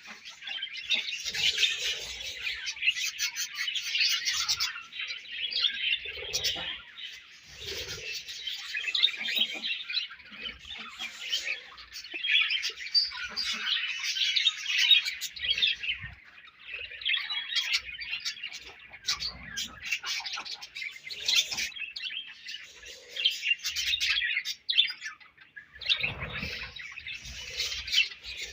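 A group of budgerigars chirping and warbling continuously in dense, overlapping chatter, with short pauses every few seconds.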